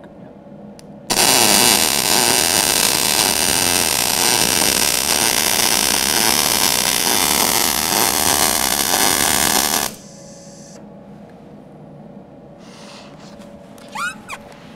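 Gas-shielded MIG welding arc sizzling steadily while a regular bead is laid with the torch at normal height. It starts about a second in and cuts off sharply after about nine seconds.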